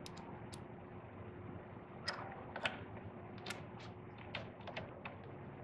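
Faint, irregular light clicks of a T-handle driver with a 4 mm Allen bit being handled and set into a small bolt, a dozen or so ticks spread unevenly.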